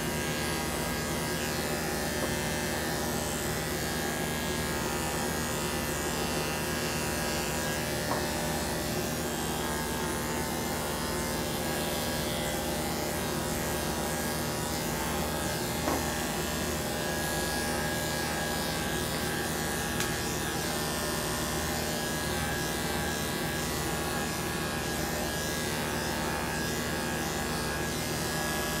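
Corded electric dog-grooming clippers running with a steady motor hum as the blade shaves through a long-haired dog's coat, with a few faint ticks along the way.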